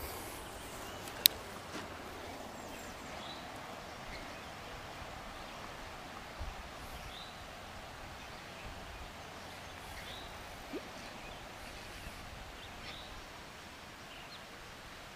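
Quiet outdoor ambience with faint, scattered bird chirps. A single sharp click about a second in, from a spinning reel's bail snapping shut after a cast.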